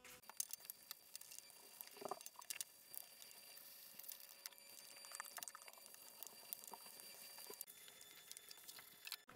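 Faint scratchy scrubbing of a hand brush working 3-in-1 oil into a weight plate, with many small scattered clicks and a brief louder scrape about two seconds in.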